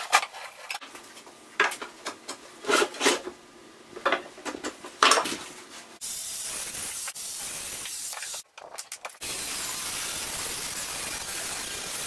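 Knocks and clatter of timber lengths and tools being moved about on a wooden workbench. About halfway through, this gives way to a steady hiss.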